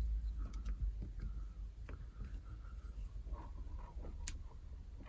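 Faint scattered clicks and scrapes of an Allen key working a tiny grub screw out of a Yale 850 bronze padlock, with one sharper click about four seconds in.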